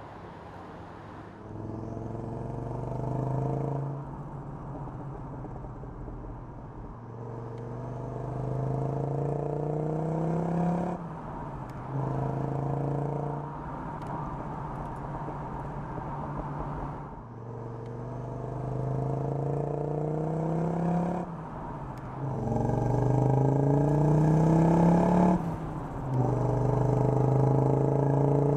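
Audi quattro five-cylinder engine pulling through the gears: its pitch climbs in about six runs, each cut off by a sudden drop at the shift, with steadier cruising stretches between. It grows louder towards the end.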